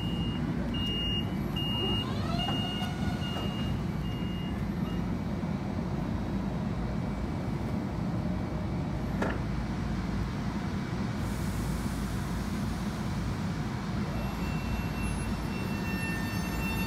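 Long Island Rail Road M7 electric train standing with a steady low hum from its equipment. For the first five seconds a series of evenly spaced high beeps sounds, the door-closing warning, while the doors shut. From about fourteen seconds in, a high whine with several steady tones begins as the traction motors start the train moving.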